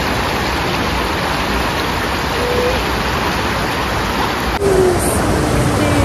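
Water pouring over a low dam weir and running over the rocks below it: a steady rushing noise. About four and a half seconds in it changes abruptly to the rush of a river flowing over rocky rapids.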